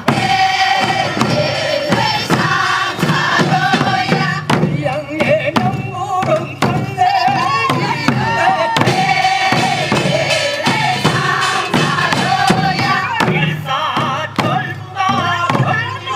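Group of voices singing a Korean traditional farming work song (deulsori) for rice transplanting, kept in time by steady strokes on a buk barrel drum.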